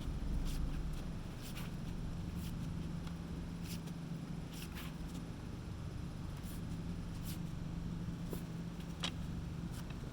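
A steady low hum with irregular light clicks and taps, roughly one a second, the sharpest about nine seconds in.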